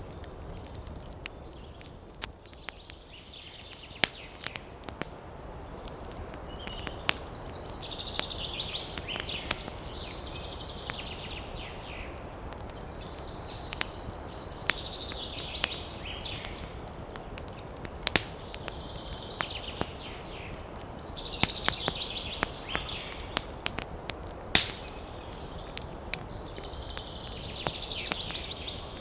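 Wood campfire crackling, with sharp irregular pops and snaps, over a steady low rumble of wind. A high-pitched hissy sound rises and fades every few seconds.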